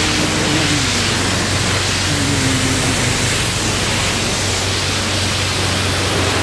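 Self-serve car wash high-pressure wand spraying water onto a car's body and glass, a loud steady hiss with a low hum underneath.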